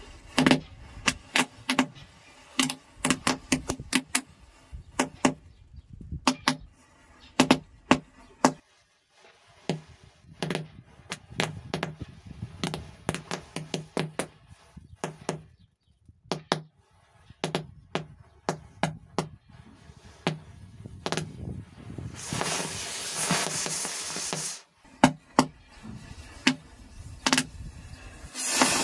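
A chain of standing matchsticks igniting one after another, giving a run of sharp, irregular crackling pops. About three-quarters of the way through, a loud hiss lasts a couple of seconds as a cluster of matches flares up, and another hiss starts near the end.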